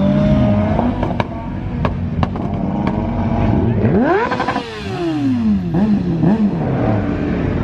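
Sports car engines revving and accelerating away, with one rev climbing steeply about four seconds in and then falling away as the car passes. Several sharp cracks come in the first three seconds.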